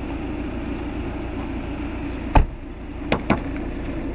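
A car door slams shut with a single loud thud about two and a half seconds in, followed by two smaller sharp clicks, over a steady low background rumble.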